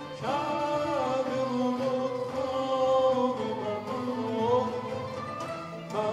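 Persian classical ensemble music, with ney and violins playing under a male singer's gliding, ornamented melody.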